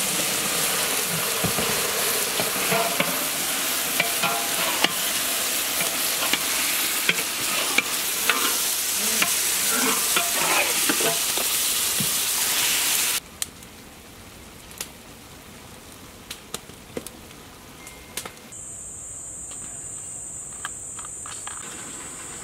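Marinated mutton sizzling in hot oil and ghee with fried onions in a large metal pot, stirred with a metal ladle that scrapes and clinks against the pot. A little over halfway the sizzle cuts off abruptly, leaving a much quieter stretch with a few scattered clicks.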